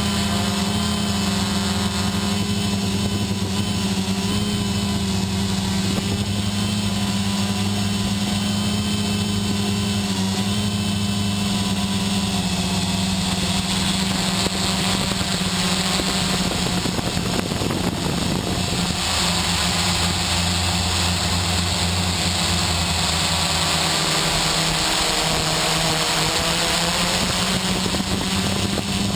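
XP2 quadcopter's electric motors and propellers buzzing steadily, heard from the GoPro mounted on the quad. The pitch of the buzz shifts a few times, with a brief rush of noise a little past halfway.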